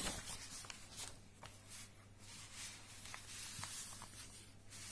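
Soft rustling of paper pages being turned and handled in a book, with a few small ticks, over a steady low hum.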